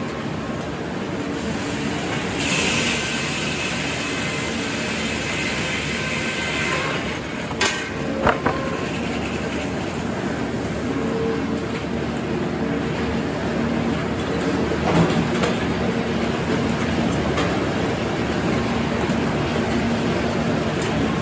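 Circular sawmill running: the large circular head saw spinning and the log carriage travelling along its track, a steady machinery noise. A hiss comes in a couple of seconds in, and three sharp clunks sound about eight seconds in.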